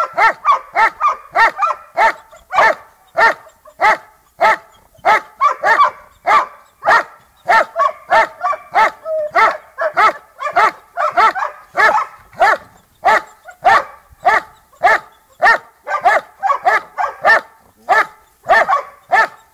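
Giant Schnauzer barking in a rapid, unbroken run, about two to three barks a second, some in quick pairs. This is the guarding bark of the hold-and-bark (Stellen und Verbellen) exercise in protection training, directed at a helper held in a blind.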